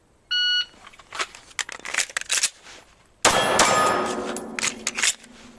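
Shot timer's start beep about a third of a second in, then a few light clicks, then from about three seconds a rapid string of gunshots with steel targets ringing after the hits.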